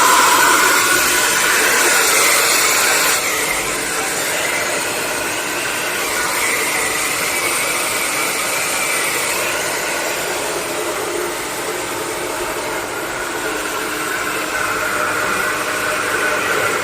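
An electric air blower is running steadily and blowing dust out of a laptop's insides, spinning its copper cooling fans. Its whirr carries faint tones that drift slowly up and down.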